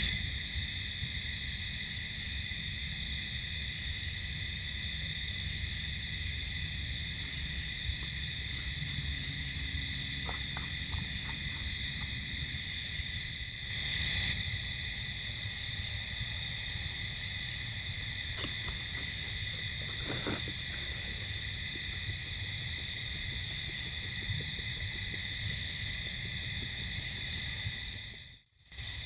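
Steady night chorus of crickets: a continuous high trilling drone over a low steady rumble, with a few faint crackles in the middle and a brief dropout near the end.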